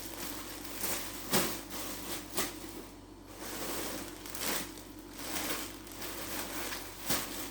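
Rustling and crinkling as clothing and its packaging are handled, in a series of short rustles with quieter handling noise between them.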